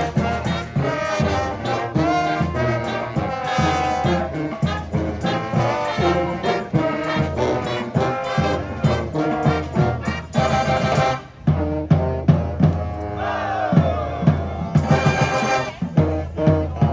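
Street brass band playing live: trumpets and trombones over a steady drum beat, with a few notes sliding in pitch near the end.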